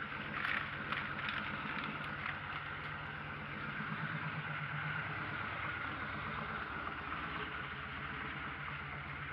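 Yamaha XVS1300A Midnight Star's V-twin running at low revs through a Vance & Hines Pro Pipe 2-into-1 exhaust, a steady low beat. A few knocks sound about a second in.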